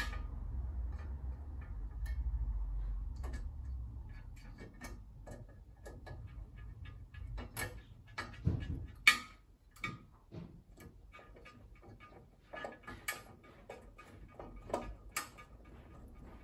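Glazing beads being fitted into a steel door's glass frame with a screwdriver: irregular small clicks and light knocks as the bead is pressed and snapped into place. A few sharper taps come in the second half, the loudest about nine seconds in. A low rumble is under the first few seconds.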